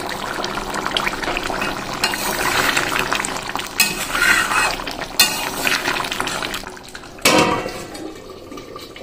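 A spoon stirring a thin, simmering prawn-and-pointed-gourd curry in a kadai, the gravy sloshing and the spoon scraping and clicking against the pan. About seven seconds in a steel plate clanks down on the kadai as a lid, ringing briefly, and the sound drops after it.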